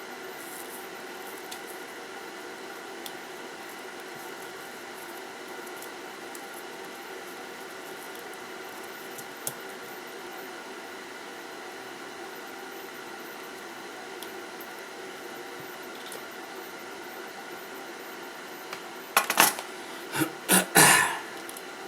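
Steady background hum with a few faint ticks of small tools during desoldering work on a circuit board, then a cluster of loud knocking and clattering of tools near the end.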